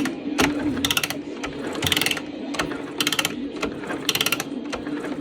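Ratchet wrench being worked in short bursts of rapid clicking, about once a second, over a steady low hum.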